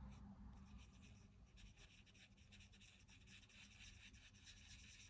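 Faint, quick scratchy strokes of ink being worked onto a small piece of card.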